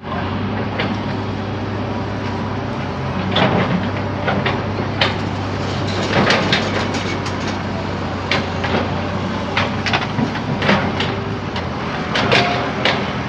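JCB backhoe loader's diesel engine running steadily, with repeated sharp knocks and clanks coming at irregular intervals.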